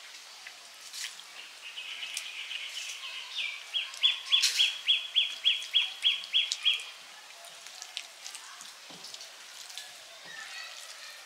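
A bird calling in a fast run of short, repeated, slightly falling notes, about four a second. It starts about two seconds in, is loudest from about four seconds, and stops after about five seconds.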